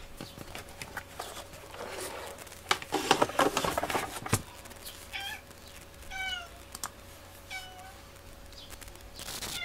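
Domestic cat giving several short, high mews that fall in pitch, about a second or so apart, in the second half. Before them come clicks and rustling from hands handling the tablet and its keyboard case.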